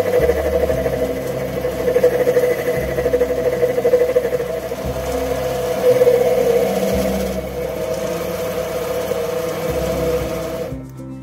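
Sieg C2 mini lathe running under power, its chuck spinning a steel rod while it is turned: a steady mechanical hum and whine. The sound drops off sharply near the end.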